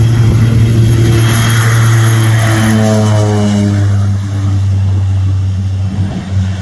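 de Havilland Canada DHC-6 Twin Otter's two turboprop engines and propellers at takeoff power as the plane races close past on its takeoff roll and lifts off. A steady low propeller drone runs under engine tones that slide down in pitch about three to four seconds in as it goes by.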